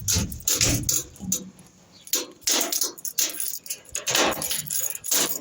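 Keys and small metal lock parts clinking and clicking irregularly while a lock is worked on by hand.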